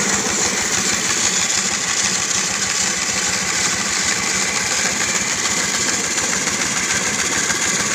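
Homemade wooden-framed bandsaw running steadily, its motor and blade making an even hum with a rapid, regular pulsing.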